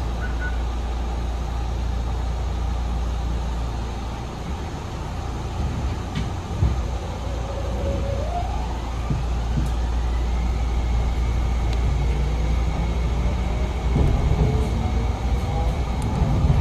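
Electric train heard from inside the driver's cab as it pulls away from a stop. A steady low hum runs while it stands. About eight seconds in, an electrical whine rises in pitch and then holds, with a second tone climbing slowly as the train gathers speed.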